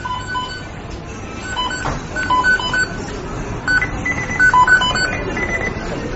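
The McDonald's kitchen beeping sound effect: short electronic beeps at a few different pitches, overlapping in irregular patterns over a steady background noise. It cuts in abruptly out of silence.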